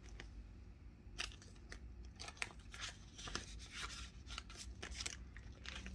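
Quiet crinkling and rustling of paper banknotes being handled and slid into a clear plastic cash envelope in a ring binder, with many small scattered clicks.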